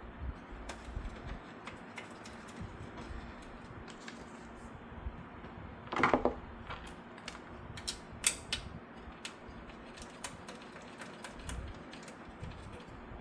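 Irregular clicks and creaks of PC case hardware being handled, with a louder crackling clatter about six seconds in and a sharp click a couple of seconds later.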